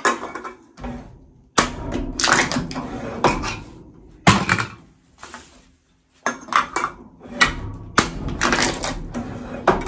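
Wall-mounted lever can crusher flattening empty aluminium cans: five or so sharp metal clanks and crunches as the lever is pulled down and the cans are crushed and knocked about.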